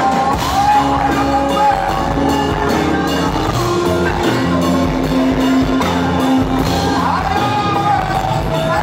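Live Rajasthani folk-fusion band music with singing over guitar, keyboard and percussion.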